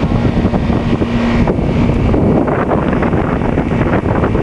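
Wind rumbling and buffeting on the microphone, loud and steady, with a faint steady hum that stops about a second and a half in.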